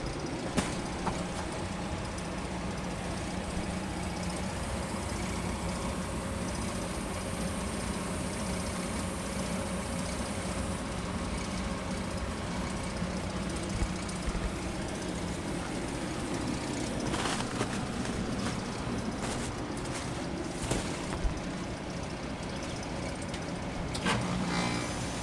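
2011 Nordyne heat pump's outdoor unit running in freezing weather: a steady compressor hum under the rush of its fan, waiting to go into a defrost cycle.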